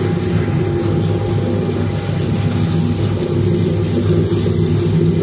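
Electric potato peeling machine running: a steady motor drone, with potatoes churning in the abrasive drum and water pouring in.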